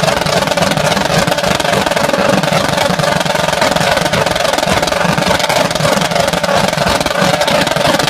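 Loud, steady engine noise mixed with music.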